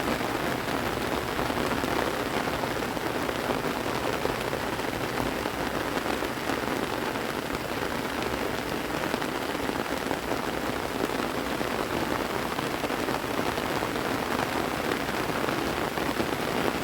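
Rain falling steadily, an even, unbroken hiss of rain on the ground and surroundings.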